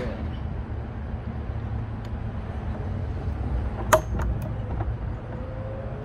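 Steady low outdoor rumble, with a sharp metallic click about four seconds in and two lighter clicks just after, from the metal gate-latch hardware being handled.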